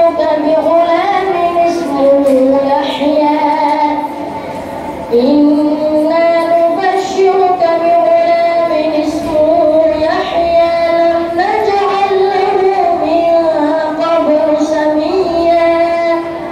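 A child's voice reciting the Quran in a melodic, drawn-out chant, sustaining long notes that slide between pitches. It pauses briefly for breath about four seconds in.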